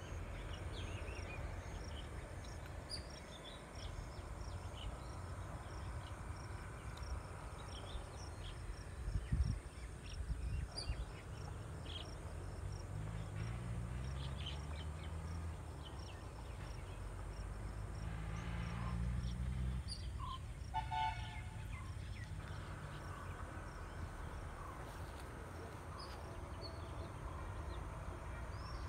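Rural outdoor ambience: scattered short bird chirps over a constant low rumble, with a low droning hum through the middle. A couple of low thumps about nine seconds in.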